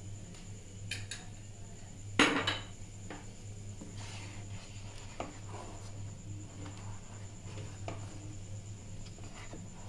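A spoon clattering against a cooking pan once, about two seconds in, then a wooden spatula stirring milk in the pan with light scrapes and knocks, over a steady low hum.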